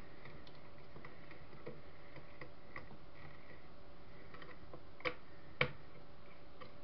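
Scattered small clicks and taps of hands working at the wiring inside a CCTV camera's housing, with two sharper clicks about five seconds in.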